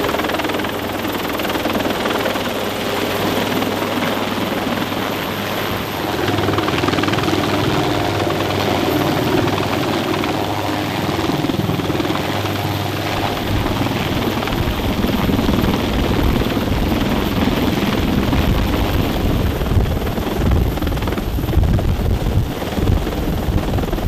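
Bell UH-1Y Venom helicopter hovering close overhead: a steady, loud rush of rotor and turbine noise. About halfway through, the low thump of the rotor blades grows much stronger.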